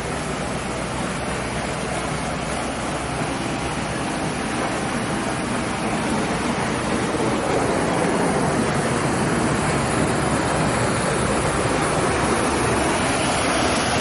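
Steady rush of flowing water, growing a little louder partway through.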